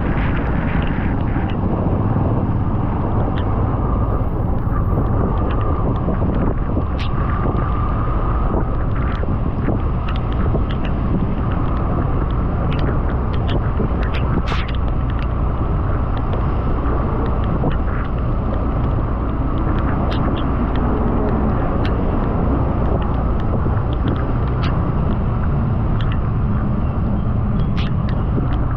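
Motorcycle riding at road speed: a steady rumble of engine, road and wind noise on the microphone, with scattered short clicks.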